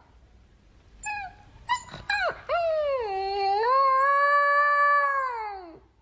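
A dog yips a few times, then gives one long howl of about three seconds that drops in pitch as it ends.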